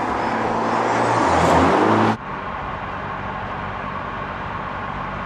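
Mercedes-AMG A 45 S's turbocharged 2.0-litre four-cylinder engine and exhaust as the car drives up, its note shifting in pitch. About two seconds in the sound cuts abruptly to a quieter, steady drone of the car cruising.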